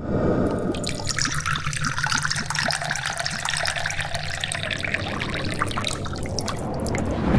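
Amber liquor poured from a bottle into a glass brandy snifter: a steady, splashing trickle of liquid into the glass.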